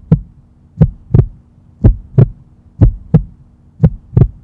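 Heartbeat-style sound effect: paired thumps, about one pair a second, over a low steady hum.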